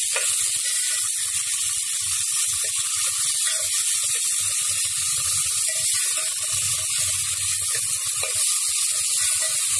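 Chopped vegetables sizzling in oil in an aluminium pot, with a metal spoon stirring and scraping against the pot's sides and bottom in irregular strokes.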